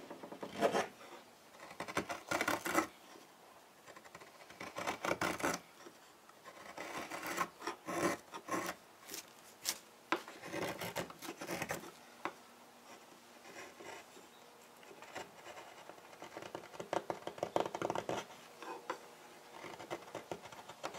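Hand carving blade cutting and scraping out the hollow of a wooden ladle's bowl, lifting curled shavings. Runs of quick, short scraping strokes come with brief pauses between them.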